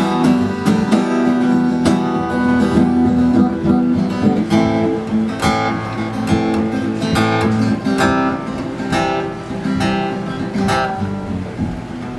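Solo guitar playing chords, strummed and picked notes ringing on, getting a little quieter near the end.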